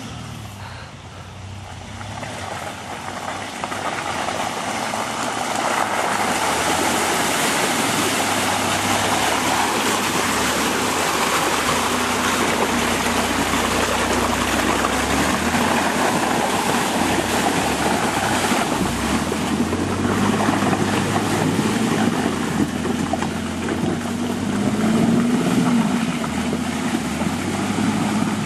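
Off-road 4x4 truck engine revving as it churns through a mud bog, with mud and water splashing and sloshing around the tyres. It grows louder over the first few seconds as the truck comes close, and revs up again near the end.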